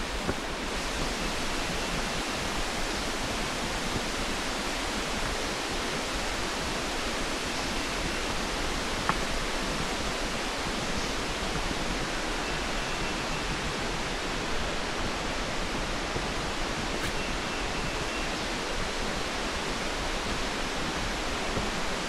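Steady rush of Jacob Fork creek's water tumbling over rocks, an even hiss with no let-up, with a few faint taps about nine and fourteen seconds in.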